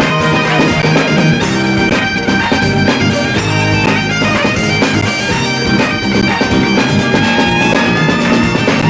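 Highland bagpipes leading a live folk band through a set of reels, with other instruments and drums behind the pipes.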